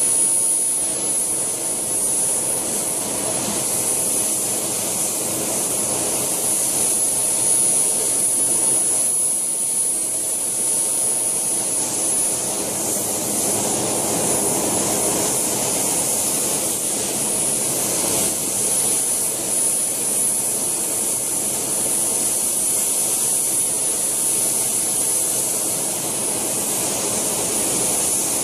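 JetCat PHT2 turboshaft turbine of a scale Alouette II model helicopter running with a steady high whine, together with the noise of its rotors as it hovers and flies low.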